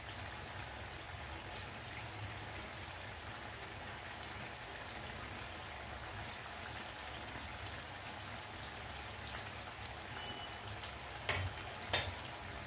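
Maida bondas deep-frying in hot oil in a kadai, a steady sizzle and bubbling. Two short knocks come near the end.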